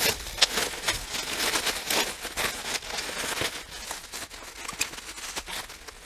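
Bubble wrap crinkling and rustling as it is handled and pulled off a packed item, with many irregular crackles.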